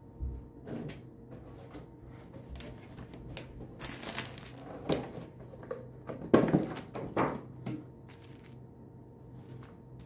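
Kitchen handling sounds: a string of knocks and clatters with some rustling, the loudest cluster about six to seven and a half seconds in.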